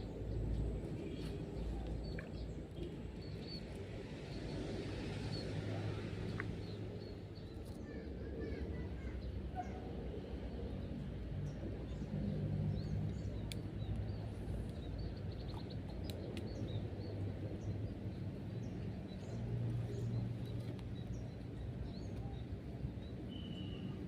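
Outdoor ambience: many short bird chirps over a low, steady hum.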